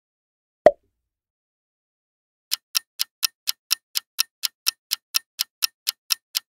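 Countdown clock ticking sound effect: a fast, steady tick about four times a second, starting about two and a half seconds in. A single sharp click comes about a second and a half earlier.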